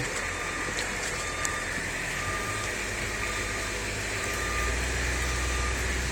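A truck's backup alarm beeping about once a second, one short steady tone each time, over the low rumble of the truck's engine, which grows louder near the end.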